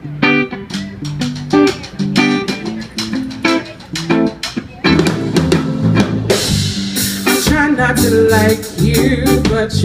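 Live band starting a song: a guitar picks out single notes, then the drum kit and the rest of the band come in about five seconds in.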